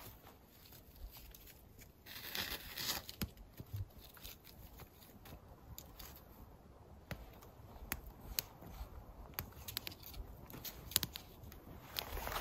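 Small kindling fire crackling with scattered sharp pops, while a bundle of dry twigs rustles and snaps as it is fed onto the flames; the twigs rustle loudest a little after two seconds in.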